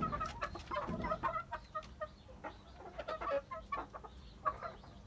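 Chickens clucking: a steady run of short, quick clucks.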